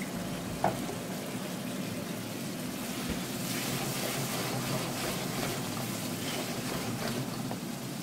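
Wet spice masala with red lentils sizzling and bubbling in a wok, with a single light tap about a second in; from about three seconds in a wooden spatula scrapes and stirs through it.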